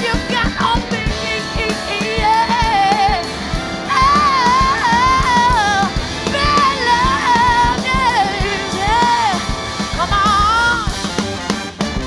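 Live soul-rock band playing: a woman sings the lead over drums, electric guitar, bass guitar, trumpet and baritone saxophone.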